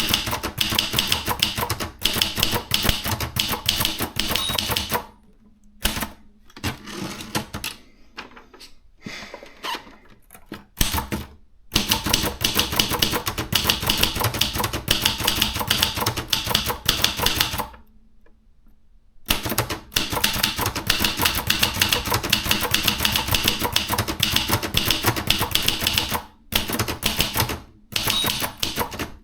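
Maritsa 30 portable manual typewriter being typed on quickly: dense runs of key strikes, slowing to scattered strokes for a few seconds about a third of the way in, with a brief pause a little past the middle.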